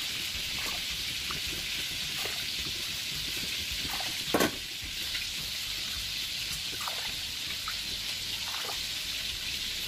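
Tap water running into a plastic measuring cup and poured into a plastic bowl of washed rice: a steady splashing hiss, with one sharper click about four seconds in.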